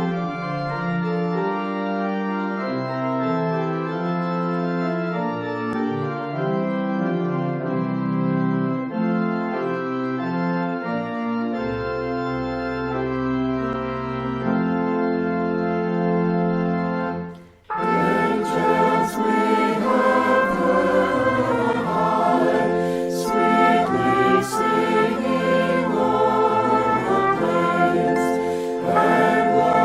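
Music of long held, steady chords. About two-thirds of the way in it breaks off for a moment, and a fuller, busier passage begins.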